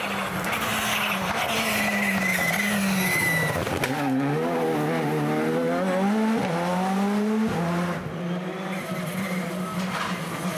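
Rally car engine running hard, its revs stepping up and down with gear changes and throttle lifts, with a high tyre squeal over the first few seconds.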